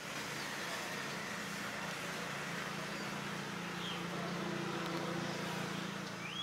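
Steady outdoor background noise: a low hum under an even hiss, with a couple of short bird chirps, one near the middle and one near the end.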